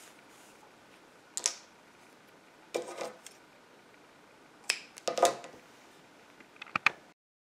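Metal scissors being handled and snipping yarn ends from a crocheted piece: a few sharp, separate clicks and snips with quiet pauses between. The sound stops abruptly near the end.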